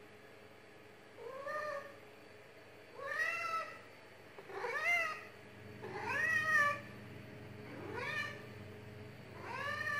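Domestic cat meowing six times, about one meow every second and a half, each call rising then falling in pitch.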